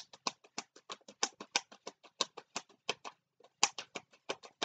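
Tarot cards being shuffled by hand: a rapid run of light card clicks and slaps, several a second, as the deck is worked to see whether any cards jump out.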